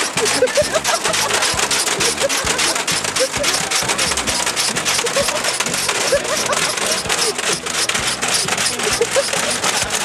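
Washing machine spinning with a brick loose in the drum: a dense, rapid rattling and banging with short squeaks recurring.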